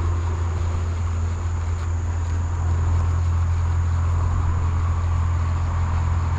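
Steady low rumble with no distinct events, and a faint, thin high-pitched insect drone above it.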